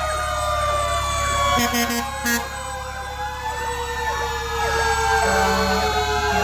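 Fire truck sirens wailing, their tones slowly falling in pitch, over the low rumble of the trucks' engines. Three or four short horn blasts come about two seconds in.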